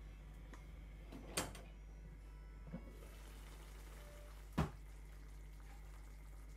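Three short, sharp knocks of cookware over a steady low hum: one about a second in, a fainter one near the middle, and the loudest about four and a half seconds in.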